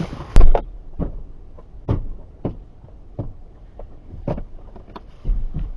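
A car door shutting with a single heavy thump, followed by a string of irregular light clicks and knocks inside the car over a low vehicle rumble.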